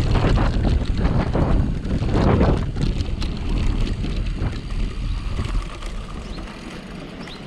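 Wind buffeting the microphone and bicycle tyres rumbling over a dirt forest road while riding. The noise dies down over the last couple of seconds as the bike slows.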